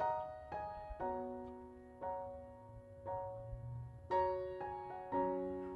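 Background piano music: gentle notes and chords struck about once a second, each ringing and fading.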